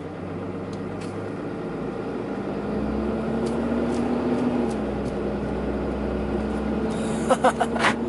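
Ram pickup truck heard from inside the cab as it pulls away on a test drive. The engine hum rises a few seconds in, then settles into a steady cruise. A few light clicks come near the end.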